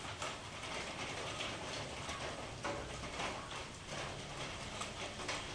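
Kittens chewing a small snake: irregular crunching and clicking.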